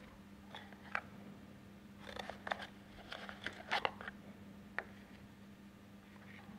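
Soft rustling of a small cardboard box and its paper insert, with a few light clicks and taps, as a mechanical shaft seal is unpacked and its parts are set down on a workbench.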